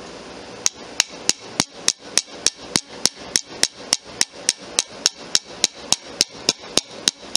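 Small watchmaker's hammer with thread-on heads striking steadily, about three blows a second, peening the end of a brass pin.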